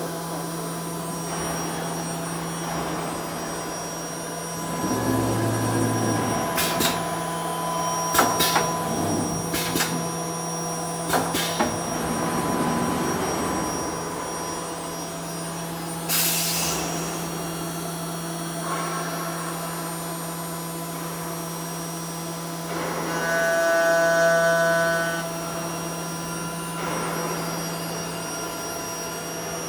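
4-axis aluminium CNC drilling and milling machine running with a steady motor hum. There are a few sharp clicks about a third of the way in and a brief hiss about halfway. The motor whine grows louder twice, early on and again near the end.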